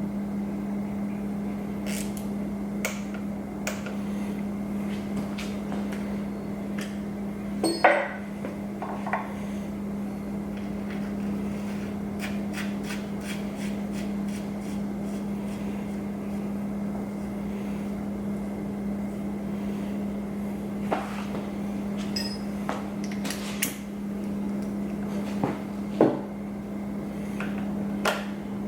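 Scattered metal-on-metal clicks and knocks of hand tools working on a transmission case, with louder clanks about eight seconds in and near the end, over a steady background hum.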